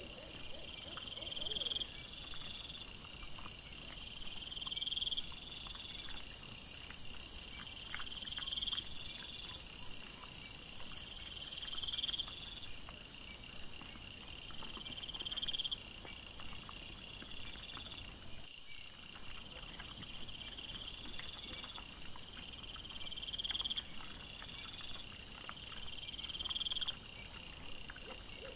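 Night insects chirping in short trills that repeat about every two seconds, over a steady high hiss from the camera's microphone.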